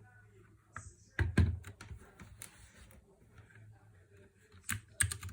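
Clicky blue-type mechanical key switches being pressed: a short cluster of sharp clicks a little over a second in, a few lighter scattered clicks, and another cluster near the end.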